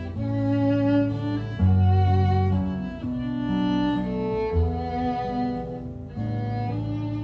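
Violin playing a slow instrumental melody of held, bowed notes over guitar accompaniment with low bass notes.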